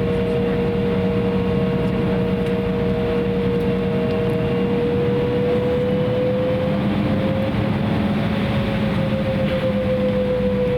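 Embraer 170's GE CF34-8E turbofan engines and cabin air heard from inside the passenger cabin at low power before takeoff: a steady rumble and rush of air with a humming whine that rises slightly about two thirds of the way through, then settles back.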